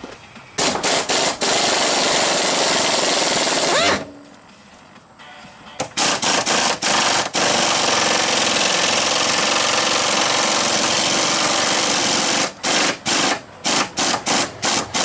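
Impact wrench hammering on suspension nuts in several runs: a few short trigger blips, a long run of about three seconds, a pause, then a longer run of about five seconds and a string of quick blips near the end.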